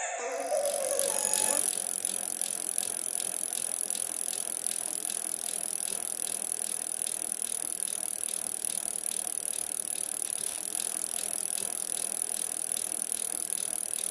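Bicycle being ridden: the drivetrain and wheels rattle with a fast, even ticking over a steady high hiss.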